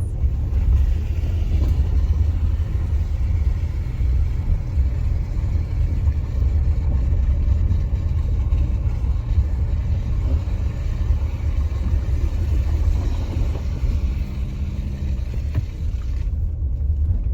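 Subaru Forester Wilderness driving along a forest road: a steady low rumble of engine and tyres.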